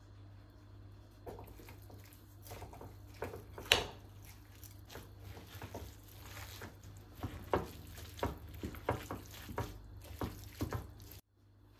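Kitchen handling sounds: a run of irregular light knocks and clicks with some trickling water, as of food and dishes being handled at a sink, over a low steady hum. The sound cuts off abruptly near the end.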